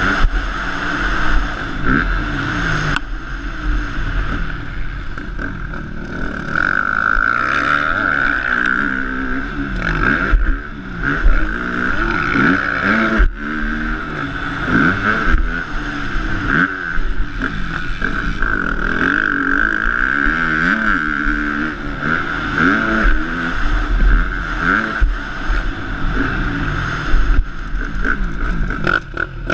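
Motocross bike engine revving up and dropping back over and over as the rider opens and closes the throttle and shifts through the gears around the track.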